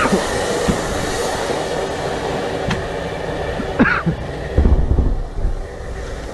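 A steady roar from the air just after two Igla shoulder-fired missiles were launched nearly simultaneously, fading slowly. A few low bumps on the microphone come about four and a half seconds in.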